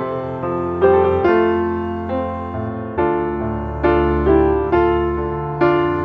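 Background music: slow piano melody, notes struck about once or twice a second and left to ring.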